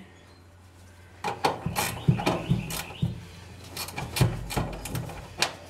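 Hand wrench working a bolt under a truck's hood: a run of irregular metal clicks and clinks, a few a second, starting about a second in.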